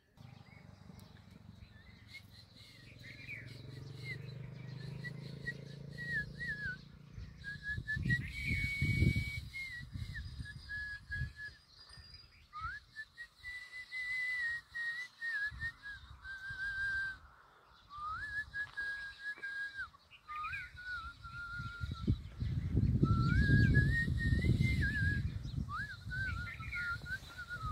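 A person whistling a wandering tune of held and gliding notes. Bursts of low rumble sound under it, loudest about a third of the way in and through the last several seconds.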